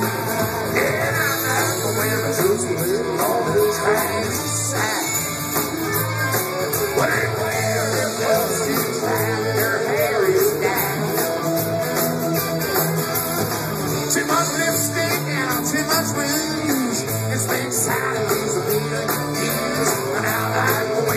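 Live country band playing, electric and acoustic guitars to the fore, in an instrumental stretch with no lyrics picked up.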